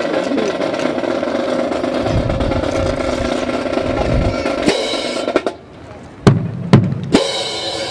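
Type 64 rifles of a drill team clattering over a steady crowd hubbub, then three sharp, loud cracks about half a second apart near the end as the rifles are struck in unison during the drill.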